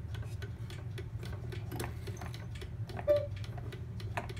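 1850s antique cuckoo clock movement ticking steadily, with one louder clunk about three seconds in as the cuckoo mechanism is tried; the mechanism is still not working right.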